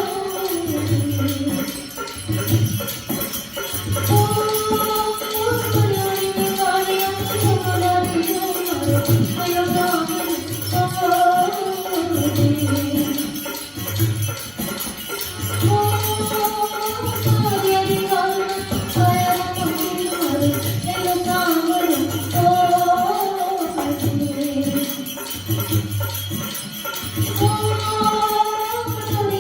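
Rajasthani folk music: a gliding melody line, likely sung, over a steady low drum beat, with jingling percussion.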